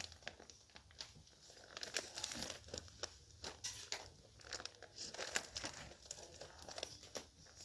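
Clear plastic bags crinkling as bagged linens are picked up and shifted by hand, with many irregular sharp crackles and rustles.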